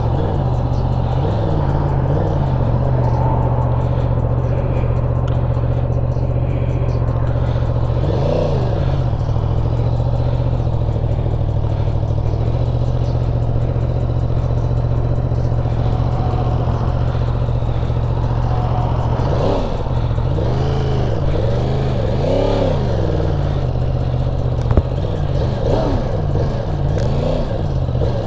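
2023 Yamaha R1's crossplane inline-four engine running at low revs as the bike is ridden away, its revs rising and falling several times in the second half. A single sharp knock comes near the end.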